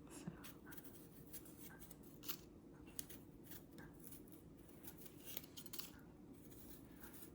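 Faint, irregular short scraping strokes of a tool peeling the skin off a piece of fresh ginger.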